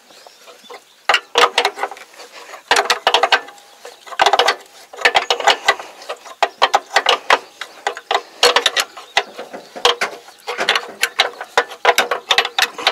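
Hand ratchet wrench cranked in repeated short strokes, each stroke a quick run of pawl clicks, tensioning a rubber crawler track.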